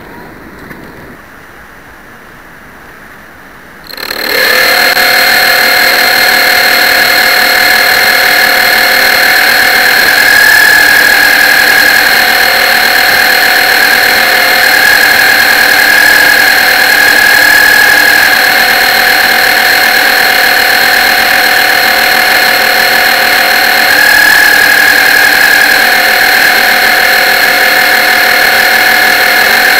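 An RC model boat's motor gives a loud, steady whine, picked up close by a camera mounted on the boat. It starts suddenly about four seconds in after a quieter stretch, and swells slightly a few times as the boat runs.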